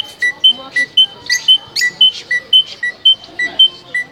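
Loud, very regular two-tone electronic-sounding beeping, alternating between a lower and a higher pitch at about four beeps a second, with caged birds giving short rising chirps over it.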